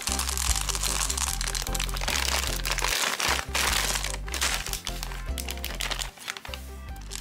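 M&M's candies pouring from a plastic bag into a full bowl, a dense rattling clatter with the bag crinkling, which dies away about five seconds in. Background music with a steady bass line plays throughout and is the loudest sound.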